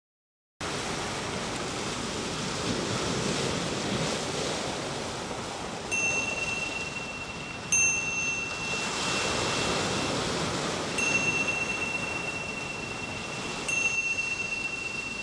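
Ocean surf washing onto a rocky shore, a steady rush. A high, bell-like chime is struck four times, a few seconds apart, each ringing on for a second or more.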